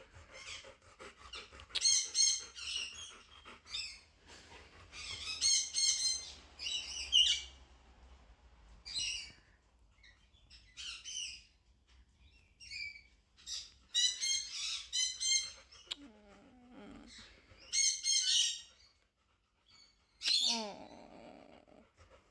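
Parrots chirping and squawking in short, harsh bursts, several calls in quick runs with pauses between; near the end come a couple of lower, rougher calls.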